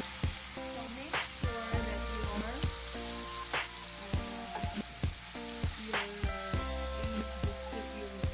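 Minced garlic sizzling in hot cooking oil in a frying pan, stirred with a wooden spoon that taps and scrapes against the pan roughly twice a second.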